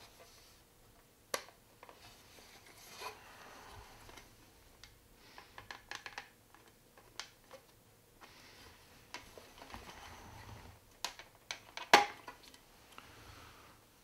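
Plastic toy trapdoor hinges being worked into a plastic playset floor: scattered light clicks and rubbing of plastic on plastic, with a sharp snap about twelve seconds in as the door clicks into place.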